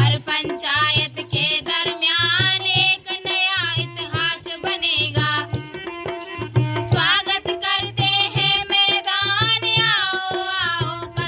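Girls singing a sports song together, sustained melodic lines held over a steady drum beat of about two strokes a second.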